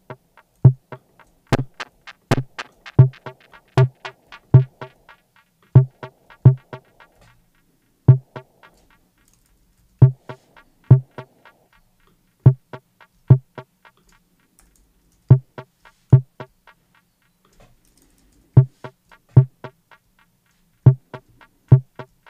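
The Arturia Drumbrute Impact's metronome click, pitched two octaves down and played from a sampler through distortion. It sounds as short, sharp electronic hits, each a bright click over a low pitched thud. They are struck over and over in uneven runs with brief pauses.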